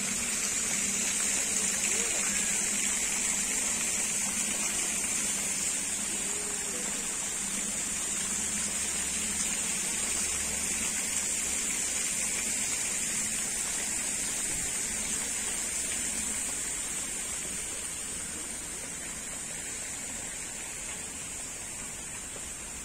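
Pond fountain's spray splashing steadily into the water, a continuous rushing hiss that slowly fades over the last several seconds.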